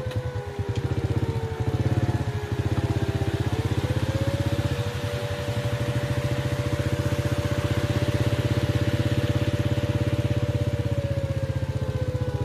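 Small motorcycle engine running steadily while riding, its pitch dipping a couple of seconds in and picking up again.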